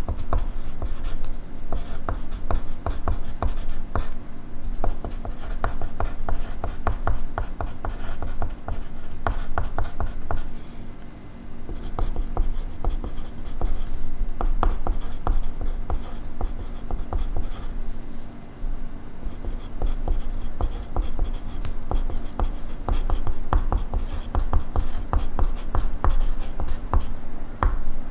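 Pencil writing on paper: a close, continuous run of quick scratchy strokes with a couple of short pauses, over a faint steady hum.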